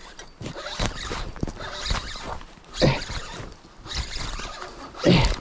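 Spinning reel being cranked in quick, uneven bursts while a hooked fish is brought up through an ice-fishing hole. Rasping and clicking runs throughout, with two short falling-pitch sounds, one about three seconds in and one near the end.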